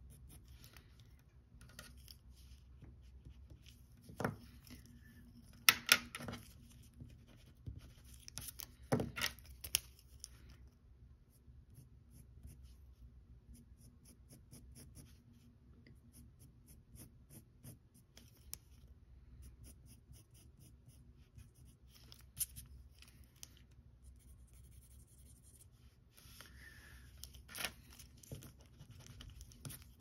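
Pencil sketching on paper: runs of quick, short scratching strokes, broken by pauses and a few sharp knocks, the loudest about six and nine seconds in.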